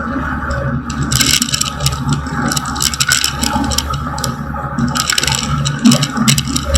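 Small plane's piston engine running steadily, heard from inside the cockpit, with irregular rattling and scraping over the drone.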